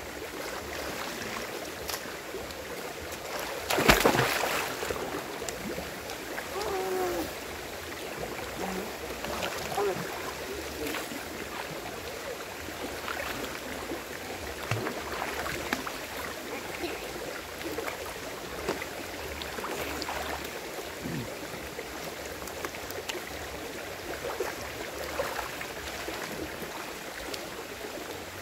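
Steady rush and trickle of a shallow rocky river. About four seconds in comes one loud splash as a child drops into the pool, followed by smaller splashes and water sloshing.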